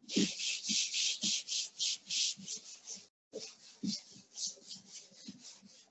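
Chalkboard eraser wiping chalk off a blackboard in rapid back-and-forth strokes, about three a second, pausing briefly about three seconds in and then going on more lightly.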